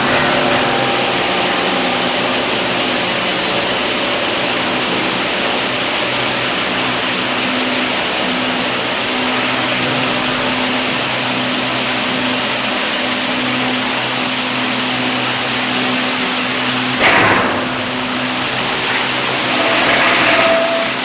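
Steady hum and hiss of running workshop machinery, with a short knock about 17 seconds in.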